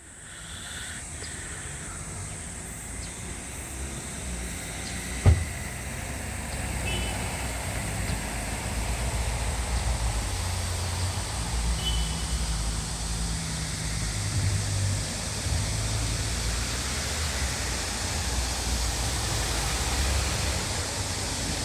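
Steady rushing noise with an uneven low rumble that swells over the first few seconds, and one sharp knock about five seconds in.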